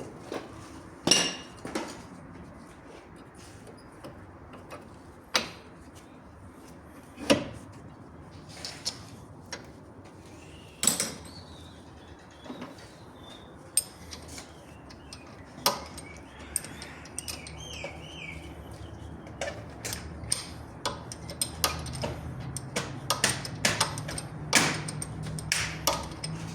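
Metal hand tools clinking and knocking on car parts at irregular intervals during work on the steering tie rod end, with a low steady hum coming in about halfway through.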